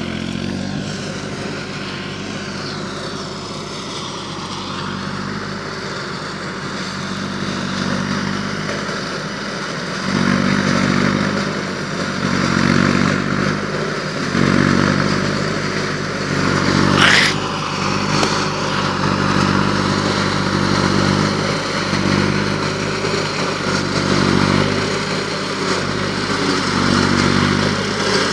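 Compact tractor's diesel engine running under load while driving a tractor-mounted single-row forage harvester that chops standing maize for silage, the engine note pulsing as stalks feed in and growing louder about ten seconds in as the machine draws near. A brief rising high squeal about seventeen seconds in.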